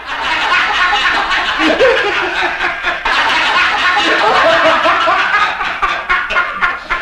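Men laughing heartily and loudly, without a break.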